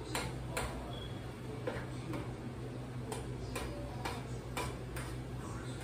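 A utensil tapping and clinking against a metal saucepan while food is stirred, in short, irregularly spaced light clicks over a steady low hum.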